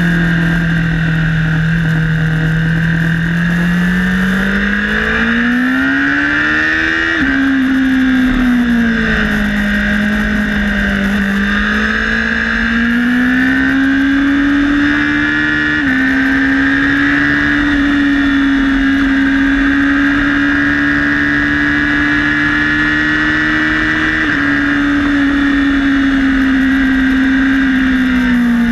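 Honda CBR1000RR inline-four engine at speed on a race track. The revs climb for several seconds, drop sharply on an upshift about seven seconds in, then climb again and hold high, with two smaller dips later on, over steady rushing air noise.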